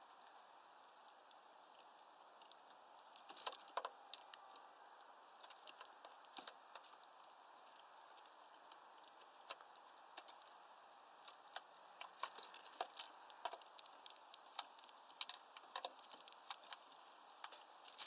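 Scattered sharp clicks and taps of birds pecking at and cracking sunflower seeds on a wooden platform feeder, with husks rattling on the tray; the clicks come thicker in the second half.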